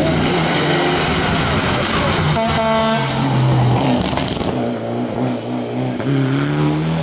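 Rally car engine revving hard, its pitch climbing and dropping several times with throttle and gear changes. A brief high-pitched tone sounds a little under halfway through.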